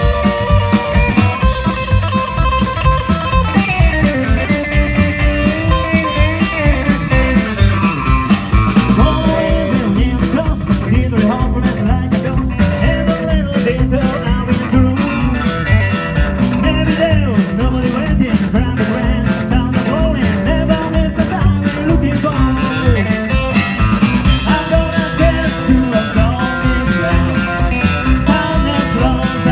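A rock and roll band playing live: hollow-body electric guitar, upright double bass and drums, loud, with a steady beat.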